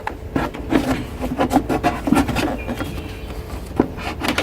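Trim removal tool scraping and clicking as it is worked in under the bottom edge of a Toyota Prius rear door trim panel, prying at the panel's retaining clips: a series of short, irregular clicks and scrapes.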